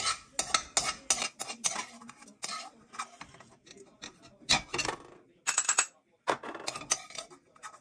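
Metal spoon scraping and clinking against a non-stick frying pan while annatto seeds are stirred in hot oil to colour it, in quick uneven strokes that thin out after about three seconds.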